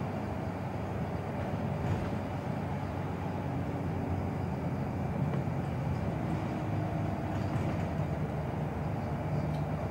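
Scania Wright Solar single-deck bus heard from inside the passenger saloon while under way: a steady diesel engine drone with road and tyre noise. The engine note grows louder in the last few seconds.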